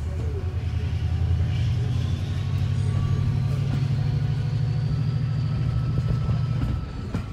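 Class 68 diesel-electric locomotive's Caterpillar V16 engine working hard as it hauls the train, heard through an open carriage window. It builds up about a second in, holds loud with a faint rising whine above it, and eases off near the end.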